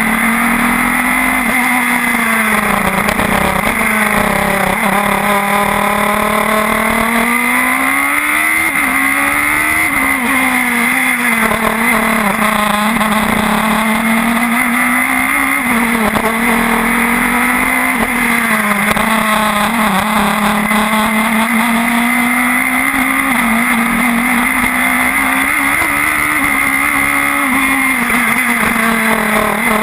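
Radical SR4 sports-racing car's engine at racing speed, heard from on board: its pitch repeatedly climbs and drops through gear changes and corners, with a sharp drop about nine seconds in.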